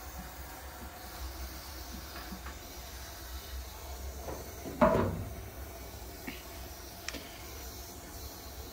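A low steady hum with a few faint clicks, and one louder sharp knock about five seconds in.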